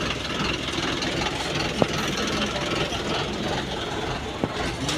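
Bus engine idling steadily at a bus stand, with two brief clicks, one about two seconds in and one near the end.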